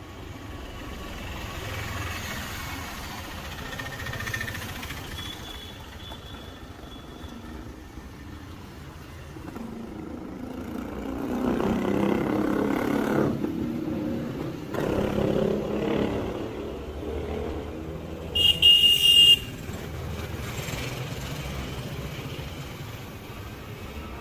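Street traffic noise from passing vehicles and motorcycles, swelling about halfway through. A vehicle horn honks briefly, sharply and loudly, near the end.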